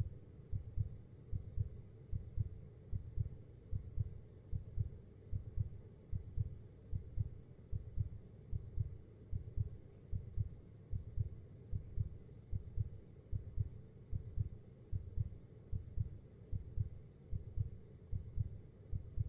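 Heartbeat sound effect: a slow, steady lub-dub of low double thumps, a little more than one beat a second.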